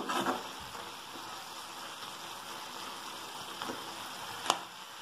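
Okra curry simmering with a steady sizzle in a steel kadai. A steel ladle scrapes the pan at the start and clinks once against it about four and a half seconds in.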